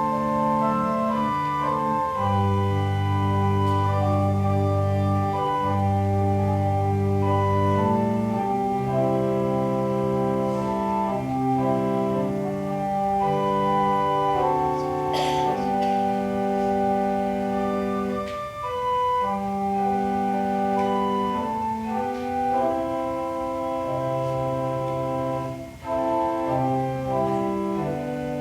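Organ playing slow, sustained chords over a deep bass line, the notes held steady and changing every second or so. A short click sounds about halfway through.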